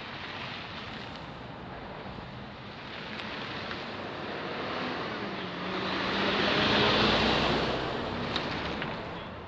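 A motor vehicle passing on the road, its tyre and engine noise swelling to a peak about three-quarters of the way through and then fading, with a low engine hum underneath.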